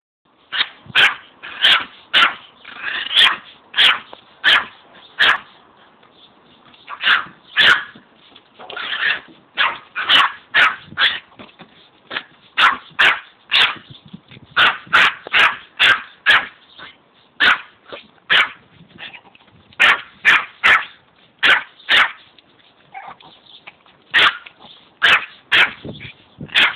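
Yorkshire terrier barking over and over: short, sharp barks in irregular runs of one to three a second, with a few brief pauses.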